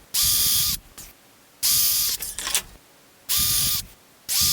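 Power drill with a countersink bit, run in four short bursts of about half a second each, spinning up, holding a steady whine and winding down, as it cuts countersinks for the screw heads.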